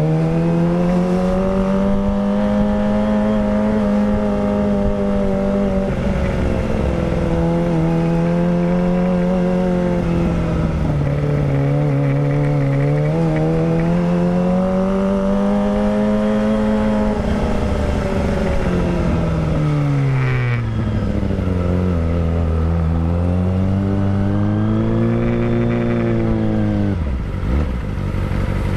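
Kawasaki Ninja ZX-25R's 250cc inline-four running loud through a Villan Pro 1 full-system racing exhaust while riding. The pitch rises and falls with throttle and gear changes, sinks low about twenty seconds in, then climbs again.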